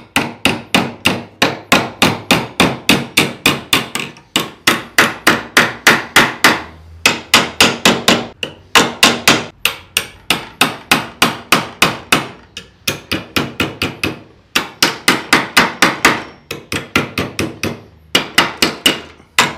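Hammer striking a steel strip clamped between wooden battens, in quick runs of about four blows a second with short pauses between runs. The blows are bending the strip over the wood's edge into a right angle to form a drawer handle.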